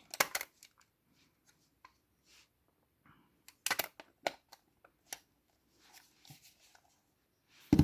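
Scattered light clicks and taps of small film cameras being handled, with a cluster of sharper clicks about three and a half seconds in and another sharp click near the end.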